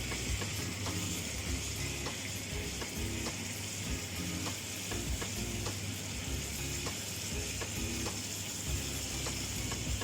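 Chicken pieces frying in butter in a pan, with a steady sizzle.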